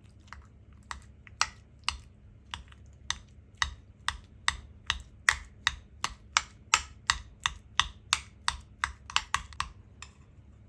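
Knife chopping on a cutting board, a run of sharp, regular strokes starting about a second in. The strokes quicken from about two to about four a second and stop shortly before the end.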